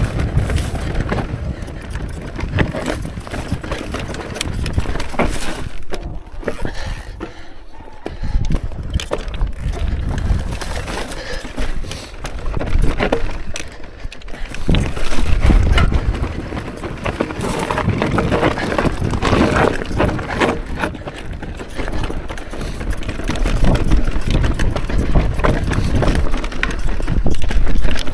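Mondraker Crafty electric mountain bike ridden over rocky trail: tyres crunching and bumping over stones, with the chain and frame rattling in an uneven clatter that swells and eases.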